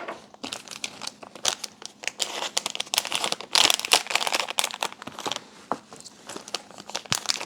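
Plastic anti-static bag crinkling and rustling as it is handled while an electronic control unit is packed into it, with many small irregular crackles, loudest around the middle.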